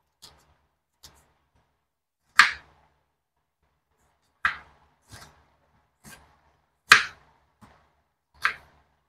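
Knife chopping on a wooden cutting board: about nine separate knocks, slow and uneven, a few of them much louder than the rest.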